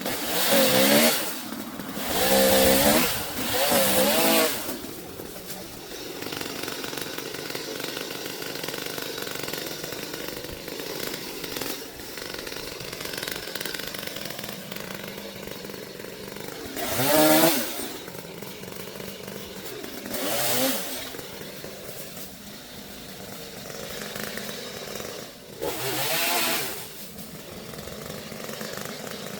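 Chainsaw revving in several short bursts, with a steady lower running sound in between.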